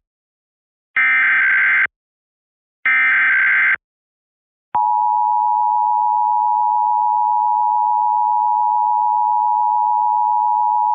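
Emergency Alert System transmission for a statewide Required Monthly Test: two short screeching SAME digital header bursts about a second apart, then after a short gap the EAS two-tone attention signal (853 and 960 Hz together) starts about five seconds in and holds steady.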